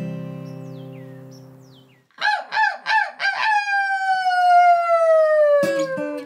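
A strummed acoustic guitar chord rings and fades, then a rooster crows: a few quick notes and one long note that slowly falls in pitch. Guitar strumming starts again near the end.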